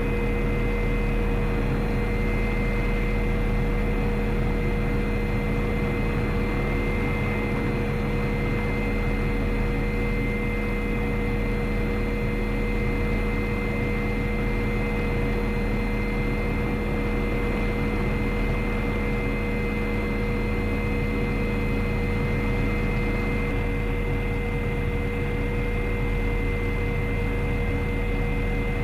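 MD 530F helicopter's Rolls-Royce 250 turbine and rotor running steadily, heard from inside the cockpit: a constant high whine over a steady mechanical rush, with no change in pitch.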